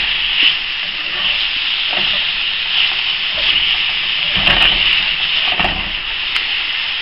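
Beef strips sizzling in hot oil in a cast-iron skillet as they begin to brown: a steady hiss, with a few scrapes of a plastic spatula against the pan as the meat is stirred and spread out.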